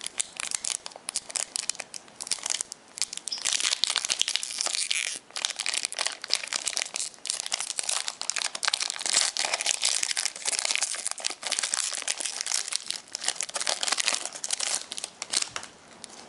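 Foil wrapper of a Pokémon trading-card booster pack crinkling and tearing as it is opened by hand: a dense run of crackles with a short break about five seconds in, stopping near the end.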